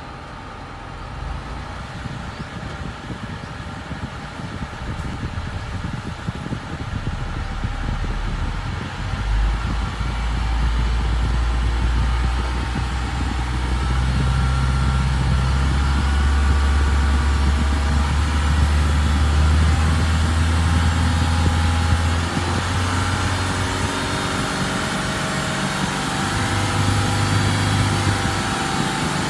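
Isuzu NPR Pro's 4,778 cc 4HL1-TC four-cylinder turbo-diesel engine running and being revved, heard from inside the cab. The engine note climbs over the first ten seconds, holds steady, then changes pitch in steps near the end.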